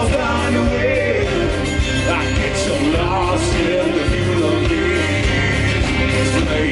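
A live rock band playing loudly, with guitar and drums.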